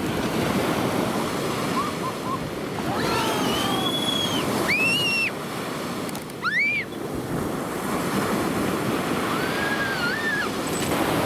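Sea surf: waves breaking and washing up the beach in a steady rush. A few short, high calls rise and fall over it in the middle.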